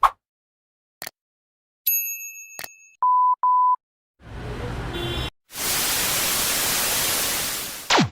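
A string of electronic sound effects: a click, a short high chime, two short steady beeps, then about two and a half seconds of loud even hiss like static, ending in a quick falling sweep.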